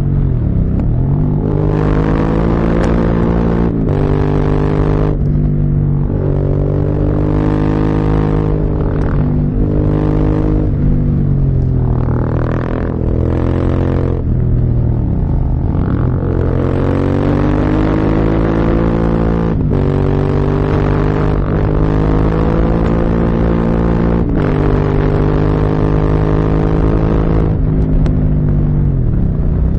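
Motorcycle engine under way on a ride, its pitch climbing through the revs and dropping repeatedly as the rider accelerates, shifts gears and rolls off for bends, with a few sharp dips and recoveries.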